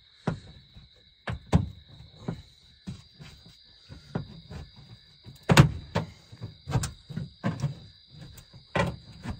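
Irregular hammer blows on a metal house wall, knocking out a round hole for the stove pipe. The strikes come unevenly, roughly one or two a second, and the hardest lands a little past halfway.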